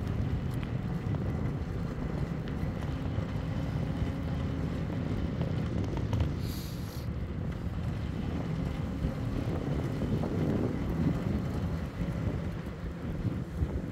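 Wind buffeting the microphone, with rolling noise from an e-bike moving along the road. About six and a half seconds in comes one short, high-pitched sound.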